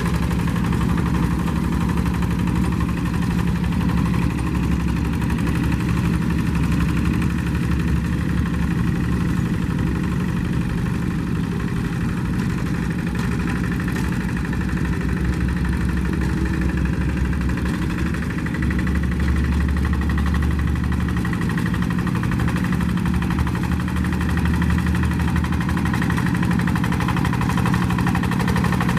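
Walking tractor's single-cylinder diesel engine running steadily.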